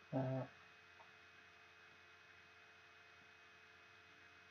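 Steady electrical mains hum with a few faint steady tones, after a brief spoken syllable at the start.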